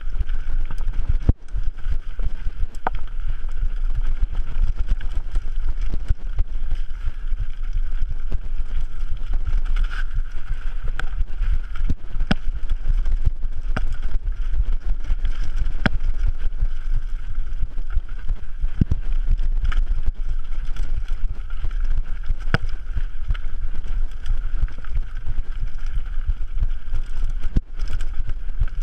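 Mountain bike riding fast down a rough forest dirt trail: heavy wind rumble on the camera microphone over steady tyre noise, with sharp knocks and rattles now and then as the bike hits stones and roots.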